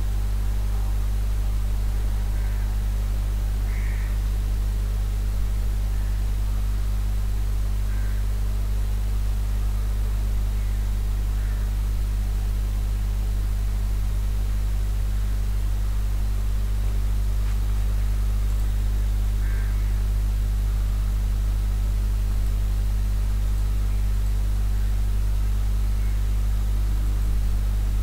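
Steady low electrical hum with a hiss over it. A few faint short high chirps come through now and then, about four or five times.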